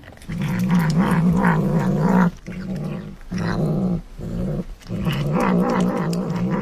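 A tabby cat growling over its food as it eats, a low wavering growl in several stretches broken by short pauses.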